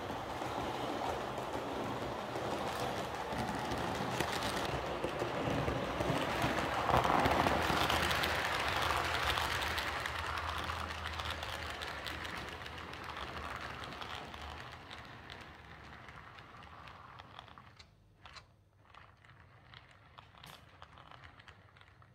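H0-scale model train running on the layout's track: a steady rolling rattle of metal wheels on rails, growing louder to a peak about seven to nine seconds in as the coaches pass close, then fading away. A few separate clicks follow near the end.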